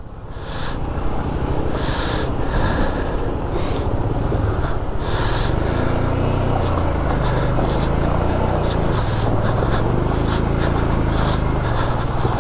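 Motorcycle engine running under held throttle through a fast-flowing water crossing, its pitch rising and falling near the middle as the rider works the throttle, over the steady rush and splash of water. It swells up in the first second, then holds loud.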